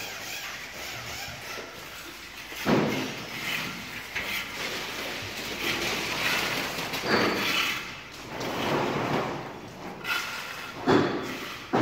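Building-site clatter from bricklaying work: three loud knocks, about 3, 7 and 11 seconds in, with scraping and rattling between them, echoing in a large empty hall.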